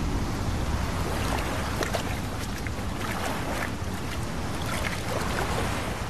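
Water splashing and sloshing around a wild boar swimming through a choppy sea, with many small splashes over a steady low rush of wind and waves.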